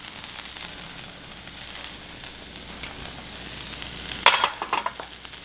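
Oil sizzling steadily in a hot skillet over a portable gas burner. About four seconds in come a few sharp knocks as the pan is set back down on the burner grate.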